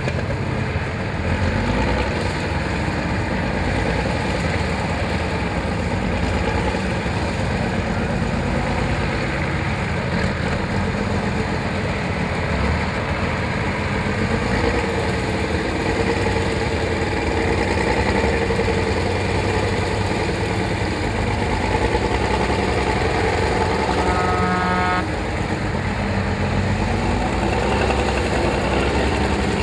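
Praga V3S trial truck's engine working hard as it crawls through mud and water, its pitch rising and falling with the throttle. Near the end a short steady horn-like tone sounds for about a second.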